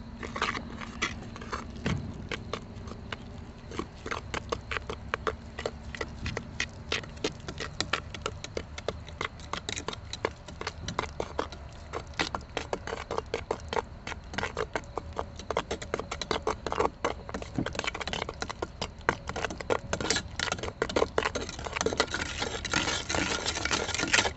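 Wet refractory mix being stirred by hand in a galvanized steel bucket, the stirring rod scraping and clicking against the bucket's sides in a quick, irregular rhythm.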